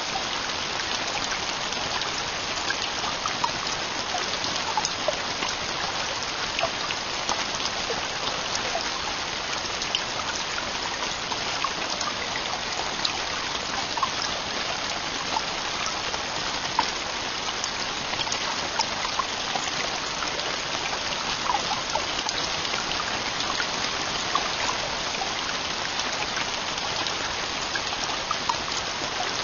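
Heavy rain falling steadily on a tent roof: a dense, even hiss with many individual drops ticking through it.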